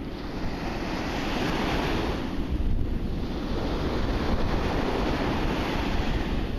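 Small surf washing up onto a sandy beach, the wash swelling and falling back twice, with wind rumbling on the microphone.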